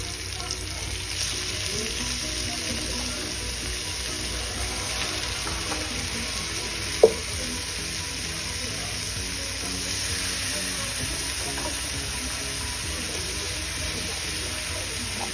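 Beef oxtail pieces sizzling steadily as they brown in oil in a nonstick frying pan. There is one sharp knock about halfway through.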